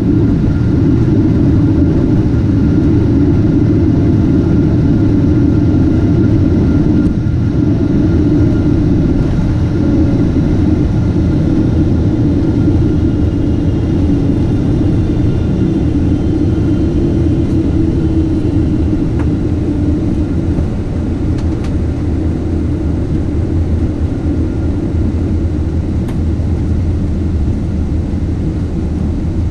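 Boeing 777-300 airliner heard from inside the cabin while rolling along the runway just after landing: a steady low rumble of engines and wheels with a faint whine, easing off a little as the aircraft slows.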